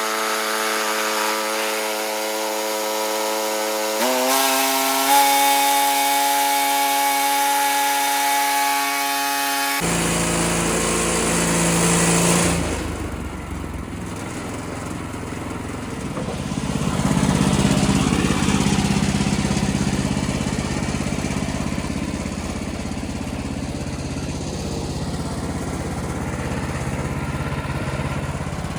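Portable band sawmill running: a steady, pitched machine drone that steps up in pitch about four seconds in. About ten seconds in it gives way abruptly to a rougher, lower engine running, which swells around the middle and then settles.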